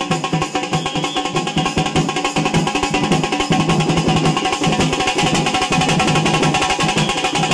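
Fast, dense folk drumming by a sikkattam troupe playing without a pause.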